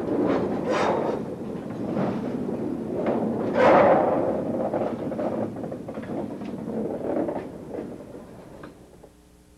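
Freight cars rolling past close by: wheels rumbling and clanking on the rails, with two louder metallic peaks, about a second in and near four seconds. The noise fades as the last car goes by and cuts off shortly before the end.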